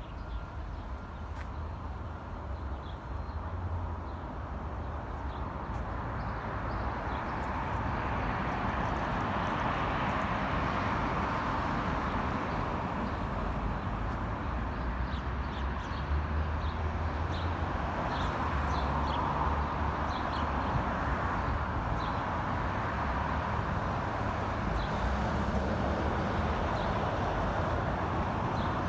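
City traffic noise, a steady rumble and hiss that swells over the first several seconds and then holds level, with sparrows chirping in short notes over it.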